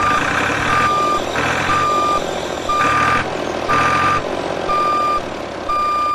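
Vehicle reversing alarm beeping, a single high tone about once a second, seven half-second beeps over a steady background noise.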